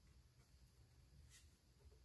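Near silence: room tone, with one faint tick about a second and a half in.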